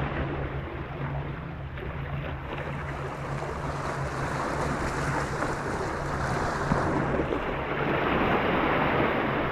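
Sea waves washing and splashing against the concrete tetrapods of a breakwater, a steady surf rush that swells a little louder toward the end. A low steady hum sits underneath for the first couple of seconds.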